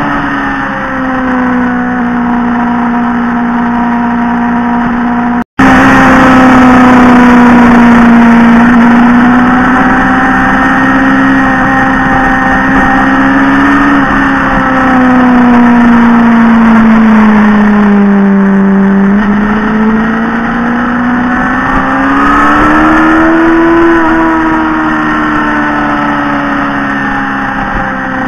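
Motorcycle engine running at cruising speed, its pitch slowly rising and falling with the throttle through a run of bends, over a steady rush of wind. The sound cuts out for an instant about five seconds in.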